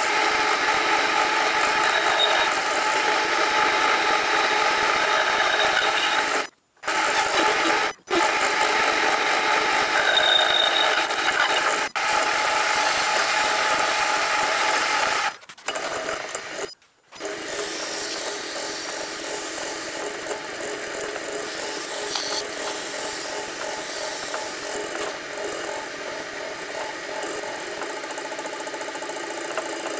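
Metal lathe running with a steel con rod spinning between centres while it is smoothed by hand, metal rubbing on the turning work. The sound breaks off abruptly several times in the first half, and after that it runs steadier and a little quieter.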